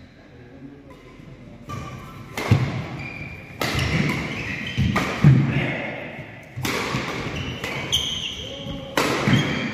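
A badminton doubles rally: rackets strike the shuttlecock in a series of sharp cracks, about one a second, starting a couple of seconds in, each echoing in the sports hall. Players' voices come in briefly between the shots.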